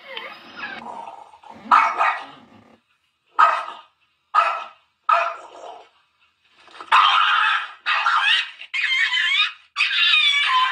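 A dog barking in short single barks, then, from about seven seconds in, cats fighting with near-continuous wavering screeches and yowls.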